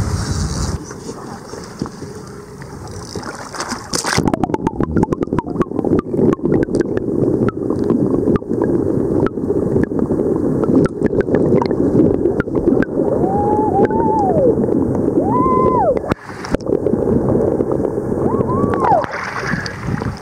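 Wind buffeting the microphone over open sea. About four seconds in it gives way to dense, crackling water noise from an underwater camera, with three short rising-and-falling whistle-like tones in the second half.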